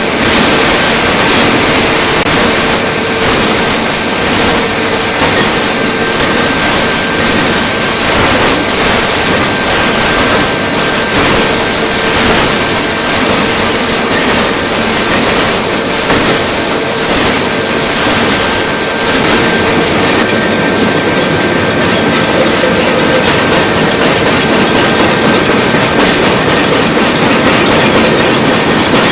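Forging machinery running: a loud, dense, continuous mechanical clatter with a steady hum, and faint regular knocks through the middle stretch.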